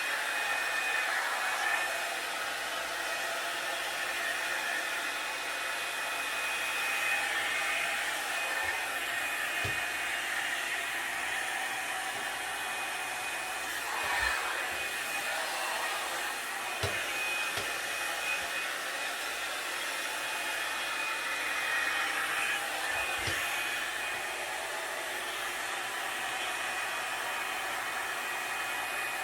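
Revlon One-Step blow dryer brush running steadily, a continuous rush of air with a thin high whine, with a few soft knocks as it is worked through the hair.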